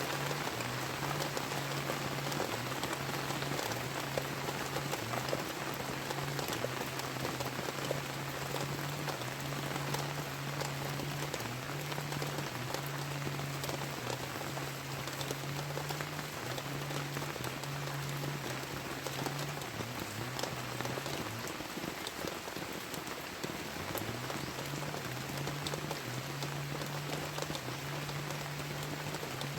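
Heavy rain falling steadily. Under it runs a low hum that keeps stepping between two close pitches; it drops out about two-thirds of the way through and comes back a few seconds later.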